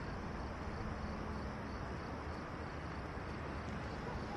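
Crickets chirping steadily in a faint, even pulse over a low, constant background hum.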